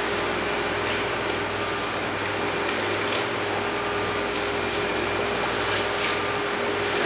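Steady machinery hum of an aquarium hall: a low drone with one held tone over an even hiss, with a few brief soft hisses.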